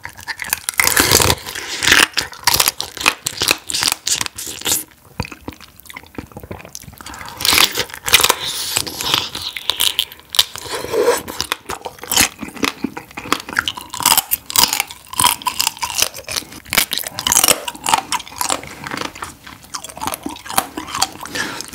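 Close-miked biting and chewing of soy-marinated raw crab (ganjang gejang) with rice: a dense run of sharp, wet crunches and clicks as the crab is bitten and chewed.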